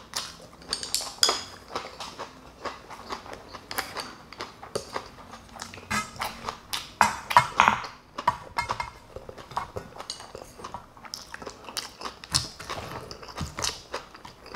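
A person chewing close to the microphone, eating a mouthful of rice with kimchi and Spam, with irregular light clicks of utensils against a bowl.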